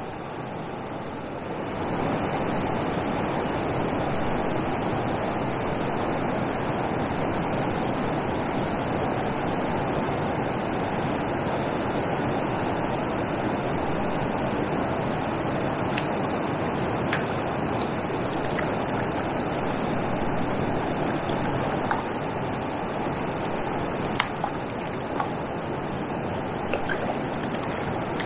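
Steady rush of water pouring over a river weir, stepping up a little louder about a second and a half in, with a few faint ticks later on.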